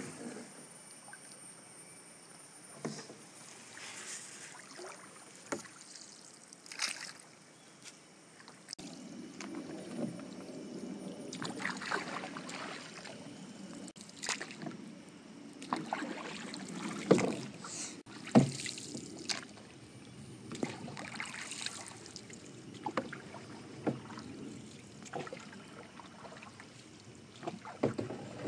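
Paddle strokes from a homemade bamboo paddle with a lashed-on blade working a small boat through calm water: irregular swishing splashes every second or two, with a few sharper knocks.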